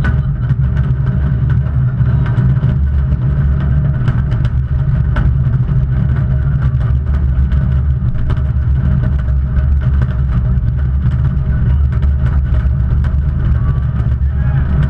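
Fireworks display: a dense, continuous low rumble of shell bursts with many sharp crackles and pops scattered through it.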